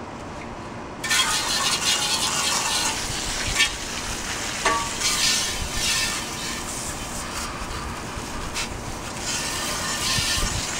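Garden hose spray nozzle jetting water onto rust-stripped steel car brackets: a steady hiss of spray that starts about a second in, with two light knocks. This is the rinse that washes the black molasses residue off the parts after a rust-removal soak.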